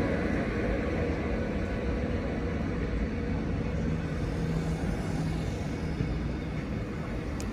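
Caledonian Sleeper coaches rolling slowly past at close range: a steady low rumble of wheels on the rails, with one sharp click near the end.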